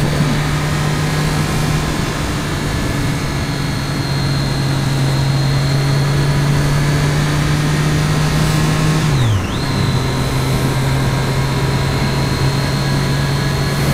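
2013 Triumph Daytona 675R's three-cylinder engine running steadily under way, with wind and road noise. About nine seconds in, the revs dip sharply for a moment, then settle back to a steady pitch.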